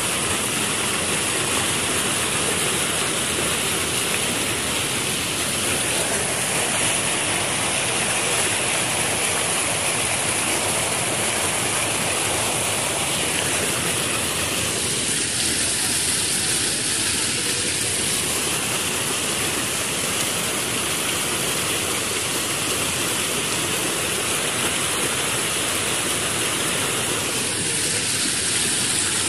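Floodwater pouring over a low concrete weir and churning in white water below it: a steady, unbroken rush of water.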